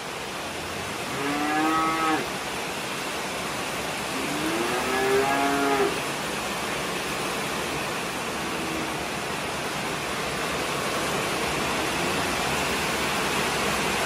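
Young Limousin-cross bull calves mooing: two drawn-out calls, the second longer, then a faint short third one.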